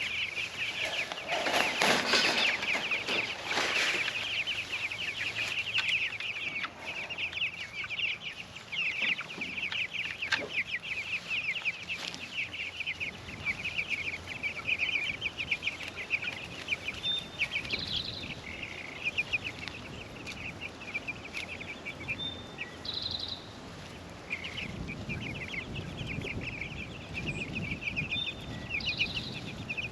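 A flock of young meat chickens peeping continuously in rapid, overlapping chirps, with a louder scuffle of movement in the first few seconds.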